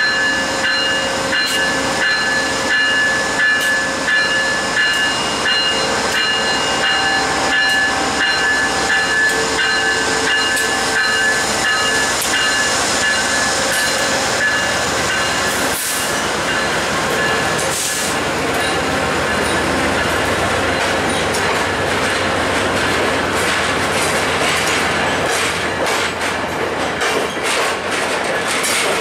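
VIA Rail GE P42DC diesel-electric locomotive pulling out of the station and passing, with a steady high whine in the first part, then the passenger cars rolling by with their wheels clicking over the rail joints.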